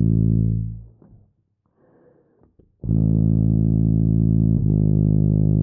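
Tuba playing slow slurred long tones: a low held note fades away within the first second, then after a short pause a new note starts about three seconds in and slurs to a second note about a second and a half later, which is held on.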